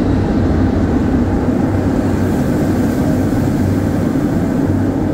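Steady loud rush of wind on the microphone with a low rumble, on board the F.L.Y. flying roller coaster during a ride.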